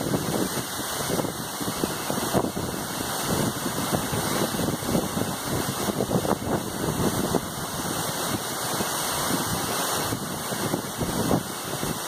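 Waterfall pouring and splashing down a rock face: a steady rushing of falling water.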